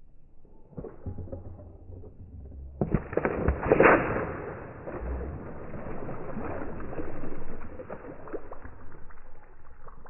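A water balloon bursting under a child's stomping foot and the water splashing out, played back slowed down: a sudden muffled splash about three seconds in that drags on for several seconds and slowly fades.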